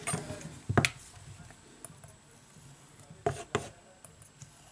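Handling noise from the phone's bare frame and a small metal scraping tool on a work mat: a knock about a second in, then two sharp clicks in quick succession past the three-second mark, with little in between.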